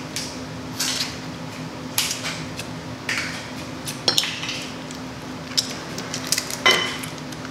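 Eating crab legs: scattered clicks and cracks of shell and clinks against dishes, with a sharper cluster about four seconds in and the loudest crack near the end, over a faint steady hum.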